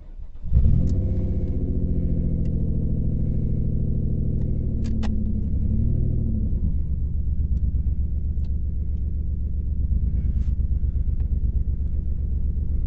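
2003 Ford Escape engine catching about half a second in and settling into a loud, pulsing idle. The loudness comes from a massive exhaust leak.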